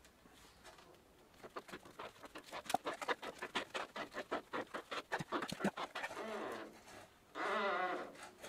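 A bicycle handlebar grip being twisted and worked off a chrome handlebar: a fast chatter of creaks, about five a second, then drawn-out wavering squeaks near the end as the tight grip slips on the bar.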